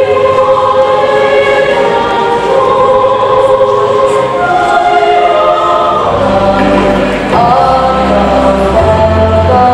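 A choir singing a national anthem in long held notes. Deeper notes join in about six seconds in.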